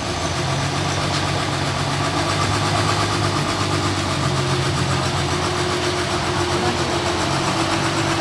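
Diesel engine of a large container forklift running steadily as the machine reverses and turns with a loaded container on its forks.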